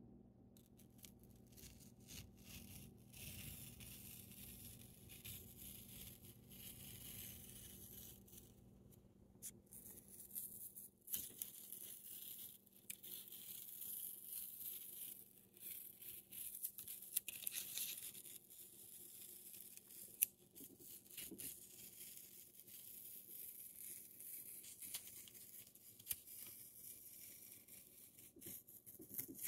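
White paper border tape being slowly peeled off the edge of a pastel drawing: a quiet, hissing rip with small crackles as the tape lifts from the paper, in several long pulls broken by short pauses.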